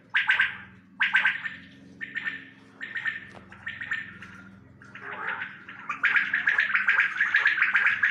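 Caged quails calling in bursts of fast rattling pulses, about one burst a second at first, becoming continuous, overlapping calling from about six seconds in.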